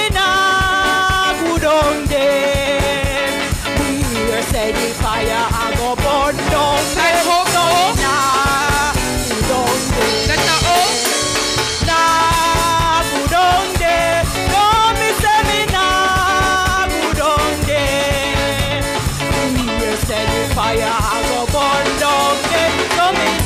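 Gospel chorus singing with live band accompaniment: voices carrying the melody over drums, bass and guitar keeping a steady upbeat rhythm.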